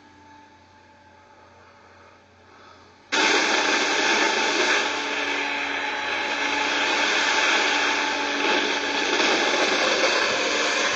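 Faint low hum for about three seconds, then the loud, steady whine and air rush of an electric RC plane's motor and propeller cut in suddenly and hold.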